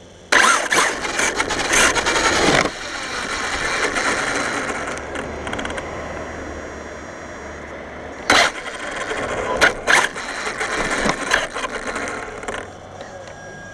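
Arrma Talion RC car running on asphalt, heard from a camera mounted on the car: its Castle 1717 1650kv brushless motor and drivetrain start suddenly, loudest in the first couple of seconds, then settle into a steady rush of gear and tyre noise with a high whine. Sharp knocks come about 8 and 10 seconds in, and it quietens near the end.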